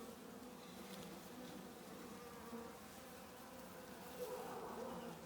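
Honeybees buzzing around an open hive, a steady hum that gets a little louder about four seconds in.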